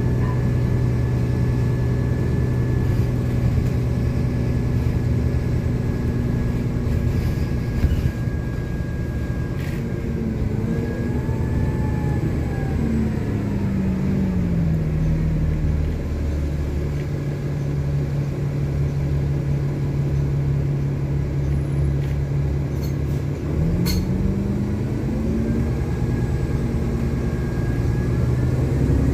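Cummins ISL inline-six diesel of a 2010 Nova Bus LFS city bus, heard from inside the cabin. The engine note holds steady, falls as the bus slows a little before halfway, stays low and steady, then rises as it accelerates again, with a thin high whine running above it.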